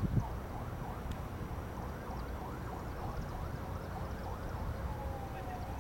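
A distant emergency-vehicle siren sounding a rapid repeating yelp, switching near the end to a slower wail that dips and then climbs in pitch, over a steady low rumble.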